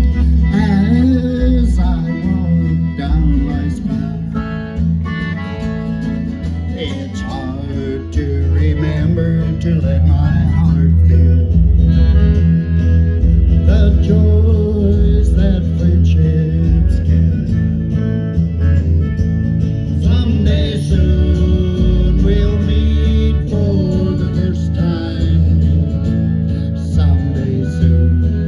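Old-time country band playing live through stage speakers: accordion, acoustic guitar and electric bass, over a strong steady bass line.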